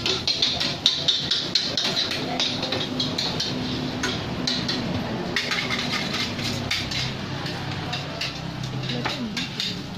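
A metal spatula clanking and scraping in a wok as fried rice is stir-fried: many quick knocks over a steady background noise, with a low steady hum in the middle.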